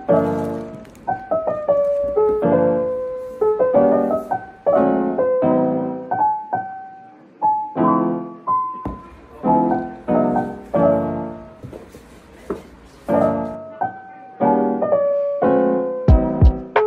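Background music: a gentle piano tune of struck notes that ring and fade one after another. Near the end, a few sharp low thumps come in.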